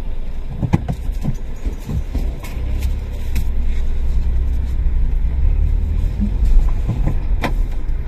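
Car engine running and low road rumble heard from inside the cabin, growing stronger about halfway through, with a few small clicks and knocks from handling things in the car.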